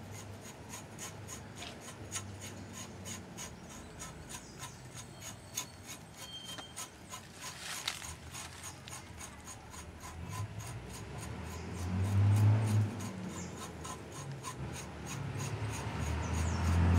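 Outer bark being scraped off a fresh cinnamon branch with a hand blade: short rasping strokes along the wood, several a second.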